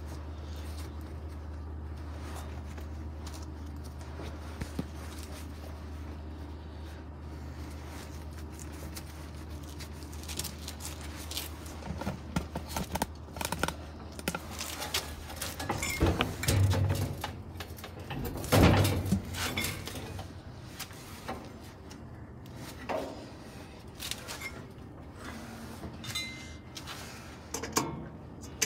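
Metal clanks, knocks and rattles from handling parts and tools inside the stripped washer cabinet, with the loudest knocks about halfway through. A steady low hum runs underneath and stops about three-quarters of the way in.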